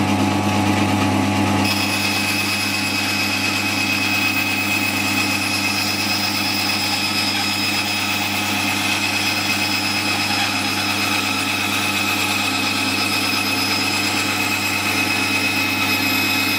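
Homemade wooden bandsaw running with a steady motor hum. Its blade cuts a straight kerf through an MDF board, starting about two seconds in with a higher, thinner steady whine and hiss added to the hum.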